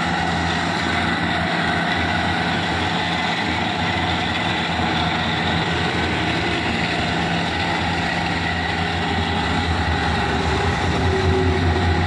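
LPG gas lance burner firing into a wood fire in a metal mandi pit, running steadily with a low rumble and a constant hiss, a little louder near the end.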